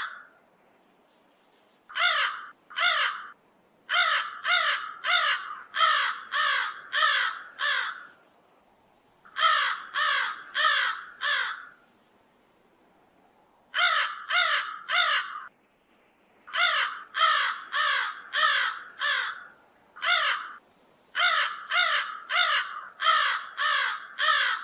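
Crow cawing: harsh caws about two a second, in runs of two to seven calls broken by pauses of a second or two.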